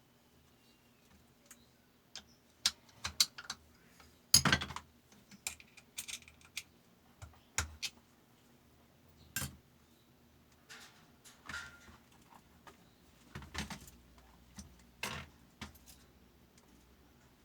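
Small metal parts and tools clinking and clicking irregularly while being handled, with one louder clank about four seconds in.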